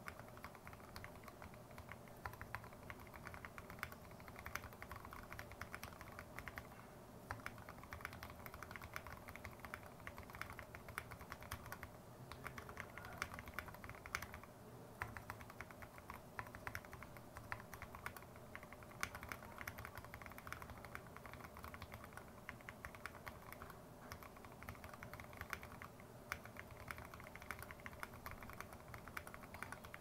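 Typing on a Tada68 aluminium-case mechanical keyboard fitted with lubed and filmed Gateron Yellow Milky linear switches, lubed Cherry screw-in stabilisers, foam in the case and MT3 keycaps: a steady, fast stream of keystrokes.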